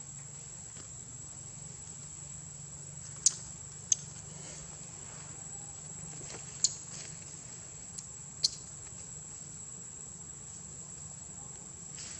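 Steady high-pitched insect drone, like crickets or cicadas, with five sharp clicks scattered through it.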